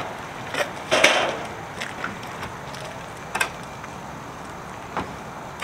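An exterior door knocking and scraping against an enclosed cargo trailer as it is tipped and slid in. There are several separate knocks; the loudest, about a second in, is followed by a short scrape.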